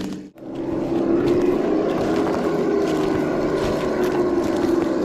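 Simulated engine sound from an RC crawler's Sense Dual ESS sound kit, a steady low engine-like drone as the truck crawls. It cuts out briefly just after the start.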